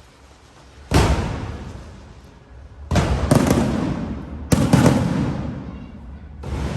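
Aerial firework shells bursting overhead. A loud boom comes about a second in, then more bursts come about three and four and a half seconds in, the later ones with several quick cracks. Each fades away slowly.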